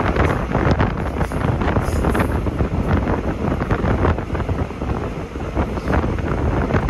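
Wind buffeting the microphone of a moving vehicle, loud and gusty, over a steady low road rumble.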